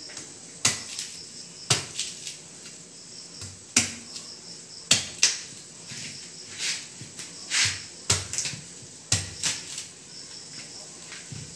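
A machete blade chopping into the stalk of a green banana bunch to cut the hands off, a dozen or so sharp, irregularly spaced chops.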